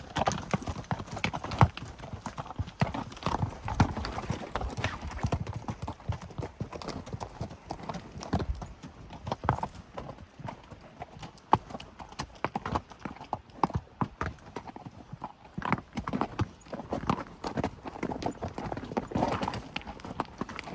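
Hooves of a riding horse and loaded pack animals clopping as they travel a trail, a continuous run of irregular hoof strikes.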